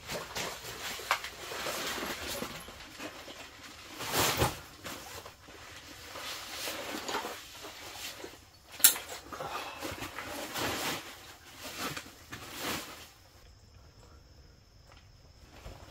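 Rustling and handling noise of clothing and gear, with shuffling steps on a dirt floor and a sharp click about nine seconds in. It goes quieter for the last couple of seconds.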